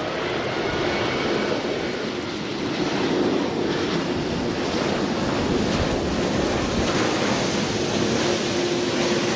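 Airbus A380-800 on final approach for landing, passing close by, its four Rolls-Royce Trent 900 jet engines making a steady roar with a faint high fan whine, growing a little louder as it passes.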